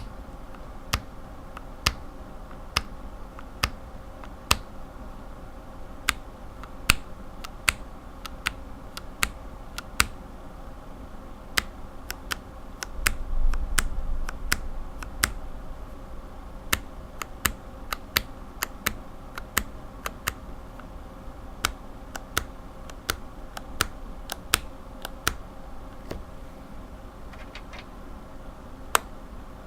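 Lubed linear mechanical keyboard switches pressed one keystroke at a time, each a single sharp clack, spaced about half a second to a second apart. A short low rumble comes about halfway through.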